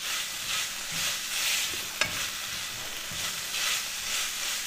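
Chicken mince frying in oil in a non-stick pan, sizzling as a wooden spatula stirs and scrapes it around in regular strokes, with one sharp tap about two seconds in.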